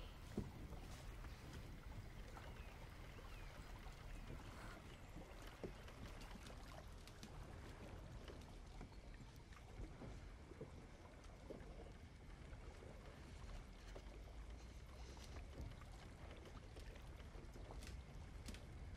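Faint water lapping and sloshing over a low steady rumble, with scattered small clicks.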